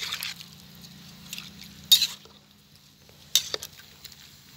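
A metal ladle stirring chopped vegetables in an aluminium pot, scraping and clinking against the pot's side in several sharp strokes.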